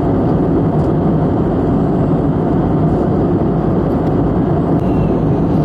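Steady roar of engine and airflow noise inside the cabin of an Airbus A320neo airliner.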